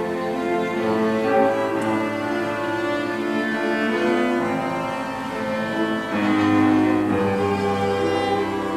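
Piano trio playing classical chamber music: cello and violin in sustained bowed lines over piano, with the cello to the fore.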